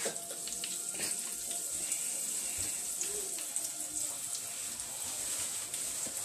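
Pieces of fish deep-frying in hot oil in a skillet: a steady high sizzle with scattered small crackles.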